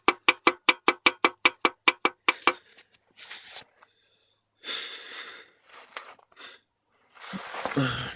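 Connecting rod on a Chevy 350's crankshaft clacking metal-on-metal as it is rocked by hand, about five sharp clacks a second, stopping about two and a half seconds in: the knock of play from a spun rod bearing. After that, a few scattered rustling and scraping noises.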